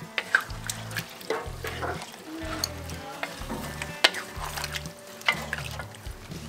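Wooden spoon stirring a thick beef stew in a cast-iron potjie pot, with irregular scrapes and knocks of the spoon against the iron. The loudest knock comes about four seconds in.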